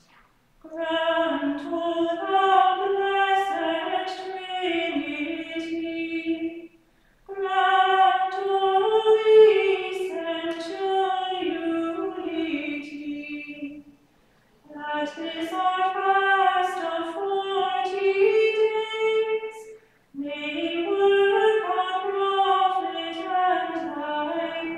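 A woman's voice singing an unaccompanied liturgical chant in four phrases, with short breath pauses between them, about 7, 14 and 20 seconds in.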